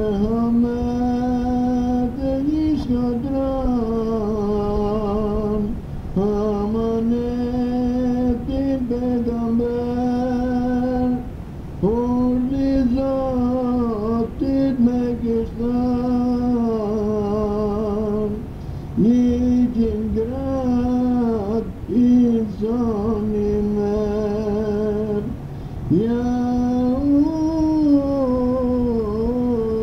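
A single voice singing an ilahi, a Sufi devotional hymn, in long drawn-out phrases with ornamented, wavering notes and short pauses for breath between phrases.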